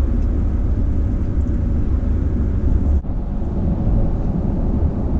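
Steady low rumble of engine and road noise inside the cab of a 2021 Toyota Tacoma TRD Off Road driving in ECT power mode, which holds the engine at higher revs. The rumble drops out sharply for an instant about three seconds in.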